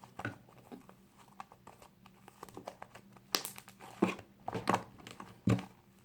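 Hands kneading and pulling fluffy slime: an irregular run of small sticky pops and tearing sounds, sparse at first and louder and busier from about halfway.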